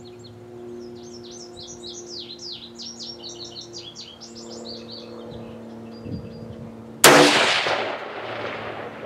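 A single shot from a scoped 5.56 rifle about seven seconds in, a sharp crack whose report rolls away over about two seconds. Before it, songbirds chirp against a low steady hum.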